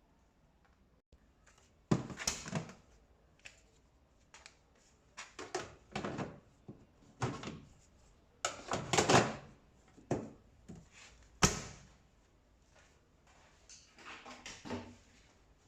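Irregular knocks, thuds and short clatters of tumble dryer panels and parts being handled and fitted during assembly. The sharpest knocks come about two seconds in and again near eleven and a half seconds.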